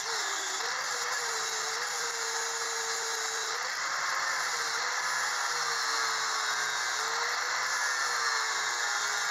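Angle grinder grinding down weld beads on a steel patch panel: a steady grinding hiss with the motor's whine dipping and rising slightly as the disc is pressed into the metal.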